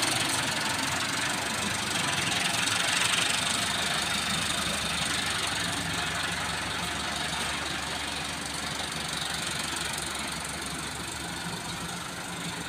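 Massey Ferguson 385 tractor's four-cylinder diesel engine running steadily at low speed as the tractor drives off, growing gradually quieter as it pulls away.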